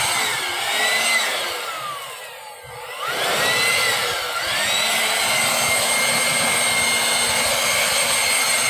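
Corded electric handheld leaf blower running with a steady whine. About two to three seconds in, its motor winds down and then spins back up to full speed.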